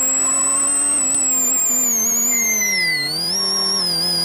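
Suzuki Swift Super1600 rally car's 1.6-litre four-cylinder engine heard from inside the cabin, running at high revs. About halfway through, the revs drop away as the car slows for an open hairpin right, then climb again as it drives out.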